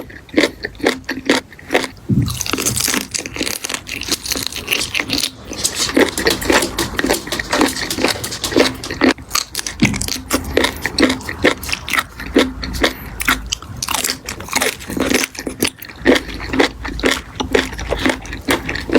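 Close-miked eating of crunchy food: continuous irregular crunching and crackling as bites are taken and chewed, many sharp crunches a second.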